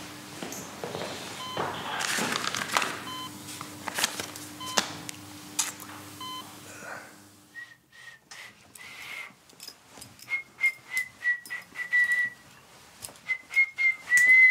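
A medical monitor beeps every couple of seconds over a steady electrical hum. About halfway through the beeps and hum stop, and a man whistles a run of short, wavering high notes, with scattered clicks and taps.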